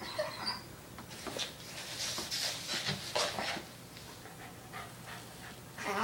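Black Labrador retriever puppy and adult Lab playing together: irregular breathy, scuffling noises in short bursts, busiest in the first half.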